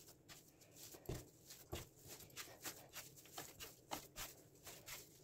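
Bread dough being kneaded by hand on a wooden cutting board: faint, irregular soft thumps and pats, a couple a second.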